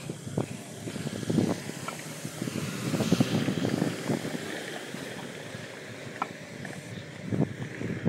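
Footsteps of someone walking, a run of short irregular knocks, with wind rushing on the microphone that swells a few seconds in.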